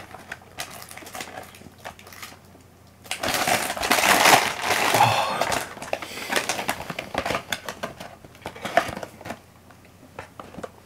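Crinkling and crackling of chip packaging being handled, with scattered small clicks and a denser run of rustling in the middle.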